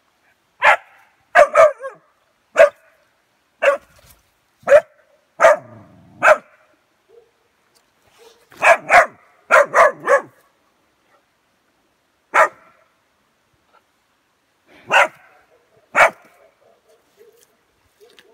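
West Siberian Laika puppy barking at a wild boar through a fence: short, sharp single yaps with pauses between them, some coming in quick runs of two or three. There are about fifteen barks in all, the last a couple of seconds before the end.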